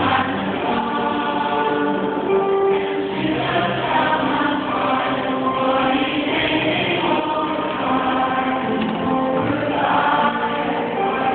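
Mixed choir of men and women singing, with some long held notes.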